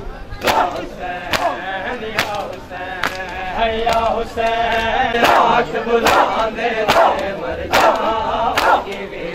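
Shia mourners doing matam: a crowd of men slapping their chests with open hands together in a steady beat, a little under one slap a second, while chanting a lament in unison.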